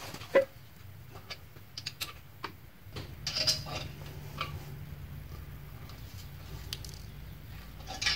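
A hand tap in a T-handle wrench turned by hand, threading a 3/8-inch bolt hole in the steel frame, giving scattered clicks and creaks of metal on metal. A low steady hum joins in about three seconds in.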